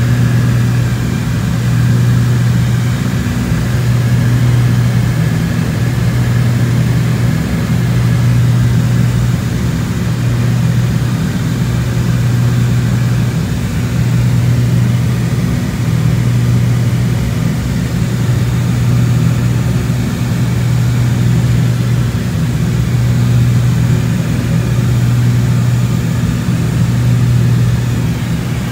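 Cabin drone of a Cessna 402C in cruise descent: its twin turbocharged six-cylinder piston engines and propellers running steadily as a loud, low hum. The hum waxes and wanes slowly every few seconds.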